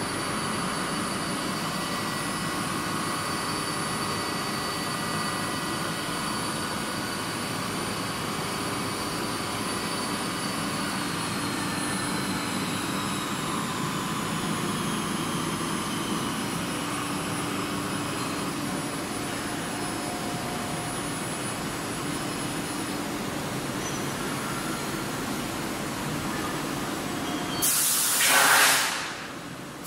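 Gildemeister NEF 320 CNC lathe running under power: a steady machine hum with high whines, two of which slowly drop in pitch partway through. Near the end a loud burst of hiss lasts about a second and a half.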